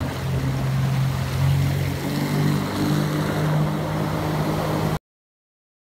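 Motorboat engine running steadily at speed, with water rushing along the hull. The sound cuts off abruptly about five seconds in.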